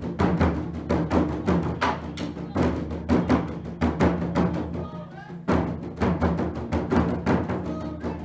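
Background music with a heavy drum beat.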